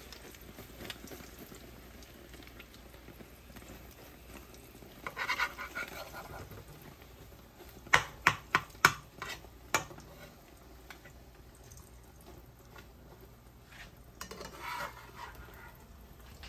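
Kitchen utensils clattering against cookware: about five sharp clinks in quick succession midway through, with softer handling noises before and near the end.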